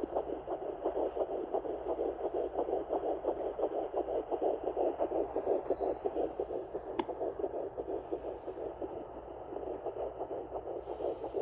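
Fetal heartbeat of a 10-week fetus picked up by a Sonoline B handheld fetal Doppler and played through its speaker: a rapid, even pulse that goes on without a break, over a steady low hum. The beat is much faster than the mother's own heartbeat.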